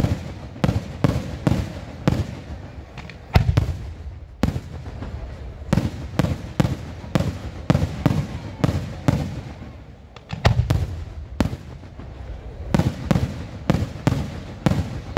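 Aerial fireworks shells bursting in quick, irregular succession: sharp bangs with deep booms, several a second, broken by a few short lulls.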